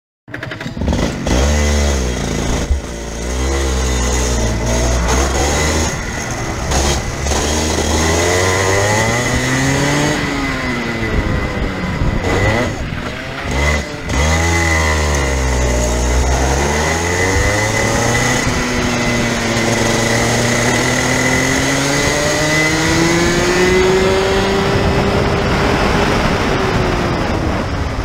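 Rotax Junior 125 cc two-stroke kart engine, heard from on board, revving up and down several times. The revs drop low about halfway through as the kart almost stops, then climb in one long pull before easing off near the end.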